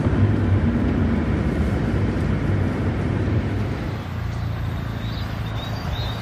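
Steady road and engine noise of a Mercedes car driving, heard from inside the cabin. About four seconds in it drops to a quieter steady outdoor background with a few faint high chirps.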